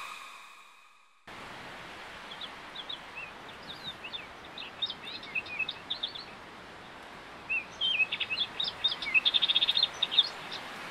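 A music track fades out at the start. Then small birds chirp and twitter over a steady outdoor hiss, with a fast trill of repeated notes near the end.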